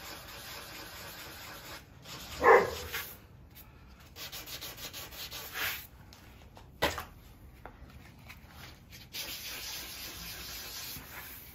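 Sandpaper rubbed by hand over a small filler patch on a windsurf board, sanding the filler back flat before painting. A single loud, short sound about two and a half seconds in and a sharp knock near seven seconds stand out above the rubbing.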